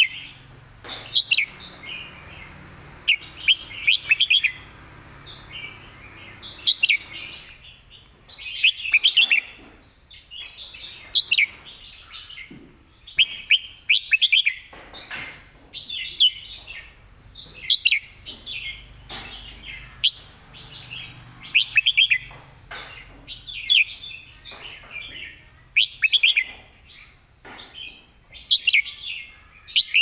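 Red-whiskered bulbul singing: short, loud phrases of quick whistled notes, repeated every second or two.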